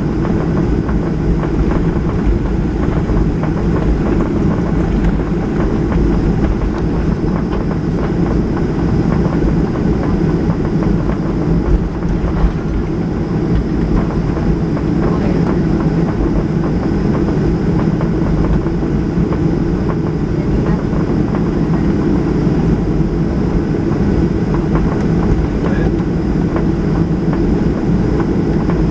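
Boeing 737-800 heard from inside the cabin: its CFM56 jet engines running at a steady drone, with a low rumble and rattle and a faint high whine over it.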